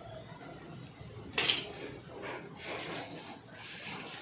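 Meat cleaver chopping chicken on a chopping block: one sharp, loud chop about a second and a half in, then a quick run of lighter knocks.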